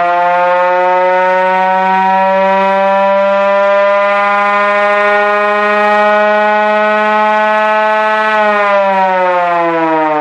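1920s Federal Electric Type B single-head rotary siren running on reduced voltage. Its wail climbs slowly in pitch as the rotor gathers speed, then at about eight and a half seconds in the pitch starts falling as it winds down.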